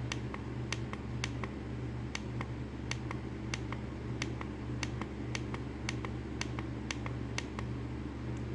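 Rapid, evenly spaced clicks, about three a second, from repeatedly pressing the button on a Digiten plug-in thermostat to step its temperature setting, over a steady low hum.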